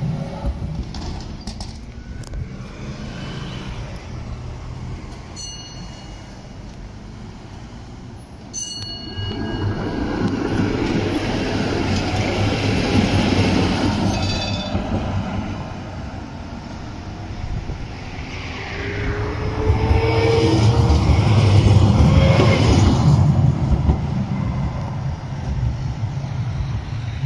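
Trams running past on the street track, among them a Konstal 105Na pair, in two loud passes: one about a third of the way in and a louder one about two-thirds in. Each pass is a rolling rumble with a faint whine that glides up and down in pitch.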